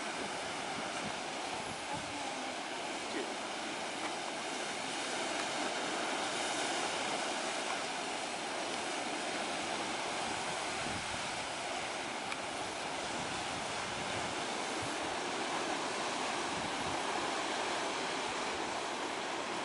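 Ocean surf breaking on rocks, a steady wash of waves.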